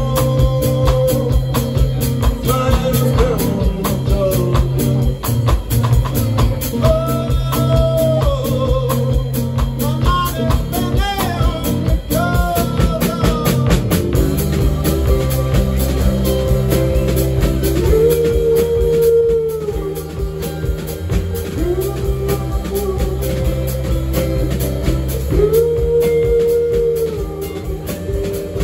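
Live rock band playing: a lead vocal with strummed acoustic guitar, electric guitar, electric bass and drum kit, with held, gliding sung notes over a steady beat.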